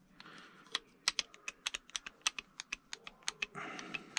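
Channel-lock (tongue-and-groove) pliers clicking as they are worked in the hands: a quick run of sharp metal clicks, about five or six a second, starting just under a second in.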